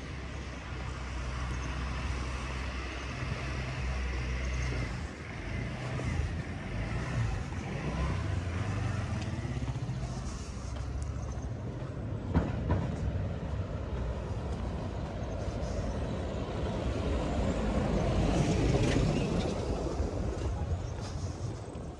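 Street traffic: vehicles going by, with a low engine hum at first and one passing close, loudest near the end. A single sharp knock about halfway through.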